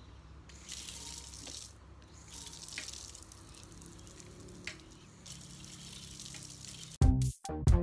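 Water running and splashing in two spells, as from washing a motorcycle down. Background music cuts in abruptly near the end.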